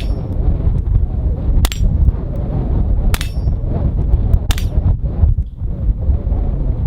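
Taurus TX 22 .22 LR pistol firing four spaced shots, roughly one every one and a half seconds, some followed by a short metallic ring from the steel plates being hit. Heavy wind rumbles on the microphone throughout.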